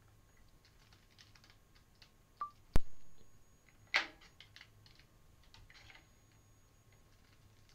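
Computer keyboard typing in scattered keystrokes, with one sharp, much louder knock a little under three seconds in and a heavier strike about a second later; a short beep-like blip comes just before the knock.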